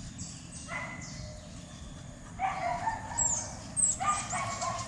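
Dog giving three short, high-pitched whining calls, spaced about a second and a half apart. Faint high chirps of birds come in between.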